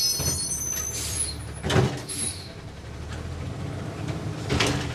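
Garbage truck running with a steady low rumble as it lifts and empties a trash can full of plywood scraps, with a loud noisy burst about two seconds in and another near the end.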